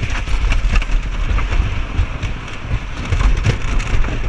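Big Dipper wooden roller coaster train running along the track: a steady low rumble of the wheels with frequent clicks and rattles. Wind noise on the microphone runs through it.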